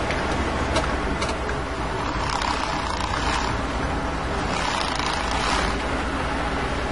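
Off-road vehicle running, a steady low rumble with a rushing noise over it.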